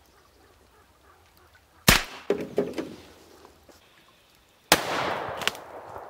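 Two pistol shots about three seconds apart. The second is followed by about a second of rushing blast noise, with one more sharp crack in it, as the bottle in the campfire bursts and throws up a cloud of ash and smoke.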